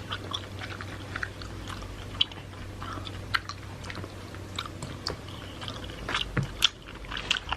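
A person chewing food, with many short wet mouth clicks and smacks scattered irregularly, over a low steady hum.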